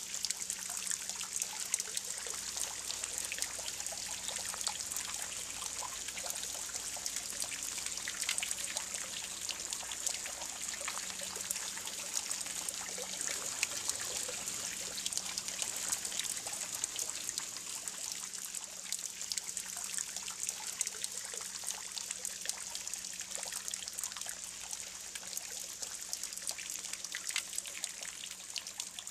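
Spring-fed fountain jet splashing into a stone-walled pond: a steady trickle with many small droplet splashes, which aerates the water.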